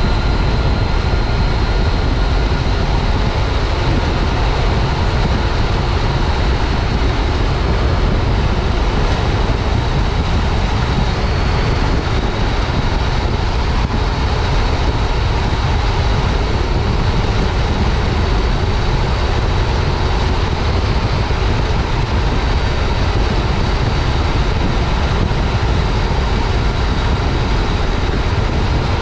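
Wind rushing over a helmet-mounted camera, with a 2015 Yamaha FJ-09 Tracer's three-cylinder engine running underneath at a steady cruise. The sound stays level, with no revving or gear changes.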